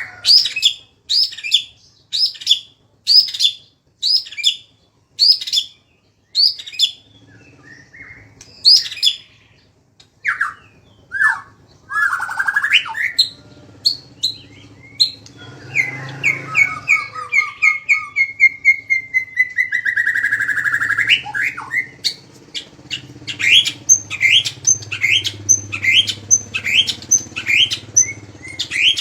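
Songbird singing loudly: a run of sharp, repeated calls about one to two a second, then varied whistled notes, a fast chattering phrase that falls slowly in pitch, and near the end quicker repeated sharp calls again. This is the 'tembakan' style of song used as tutor material for white-rumped shamas.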